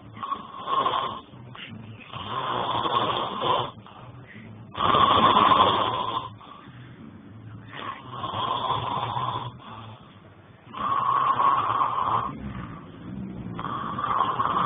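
A sleeping man snoring loudly and heavily, one long snore about every three seconds, with quieter breathing gaps between.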